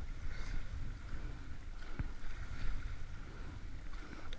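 Rowing shell under way, heard from the cox's seat: a steady wash of water along the hull with a low rumble of wind on the microphone, and a single sharp knock about two seconds in.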